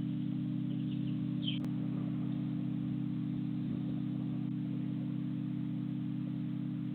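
A steady low hum, with a short bird chirp and a single click about a second and a half in.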